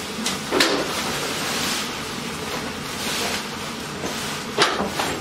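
Fabric slide sheet being pulled out from under a person lying on a hospital bed: continuous rustling and swishing of the sheet, with two sharper swishes, about half a second in and just before the end.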